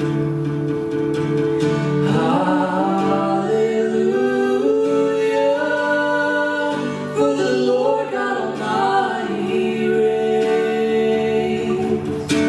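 Music: a singing voice over acoustic guitar.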